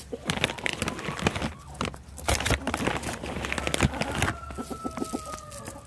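Rustling and crinkling of a mealworm bag, with chickens scrabbling and pecking in dry leaves as many short clicks and scuffs. Near the end a hen gives a drawn-out, slightly falling call.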